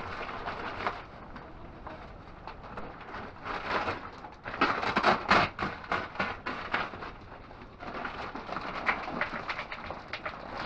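Dry goat feed mix of chopped alfalfa, hay, corn and pellets rustling and crackling as it is handled from its sack, in a rapid irregular run of crackles that is thickest around the middle.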